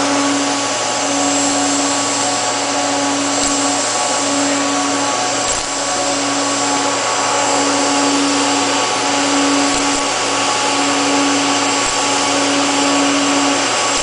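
Hot-wire TIG welding station welding carbon steel pipe: a steady loud hiss under a buzzing hum that cuts out briefly about every one and a half seconds.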